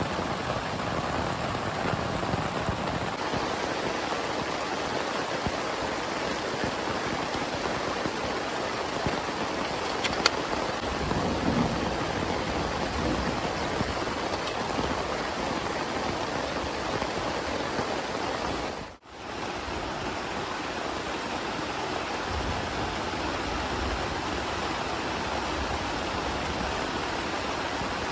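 Heavy rain falling steadily as a continuous hiss, with a single small click about a third of the way in. The sound drops out sharply for a moment about two-thirds through, then resumes.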